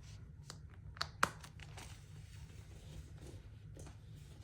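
Faint rustling of paper and plastic as a budget binder and cash envelopes are handled, with a couple of small sharp clicks about a second in.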